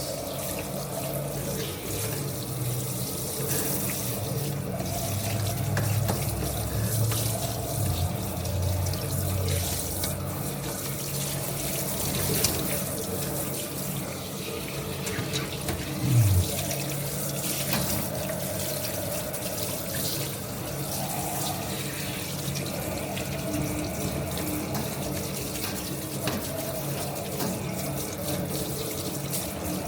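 Tap water running steadily during a cat's bath as the cat's face and body are washed and rinsed, with a short louder low sound about sixteen seconds in.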